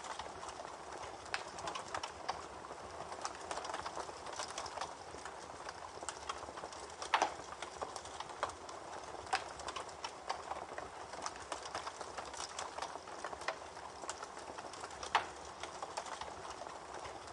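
Campfire crackling, with irregular sharp pops over a steady rush of a babbling creek; the loudest pops come about seven seconds in and again near the end.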